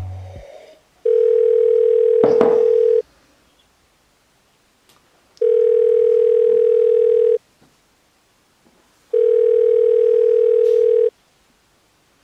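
Telephone ringback tone on an outgoing call: three long steady beeps of about two seconds each, with gaps of about two seconds between them, while the call rings unanswered.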